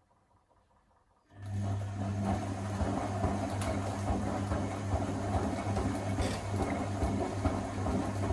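Electra Electronic washing machine's drum motor starting up after a pause about a second in, then running with a steady hum as it turns the drum, wet towels tumbling and water sloshing inside.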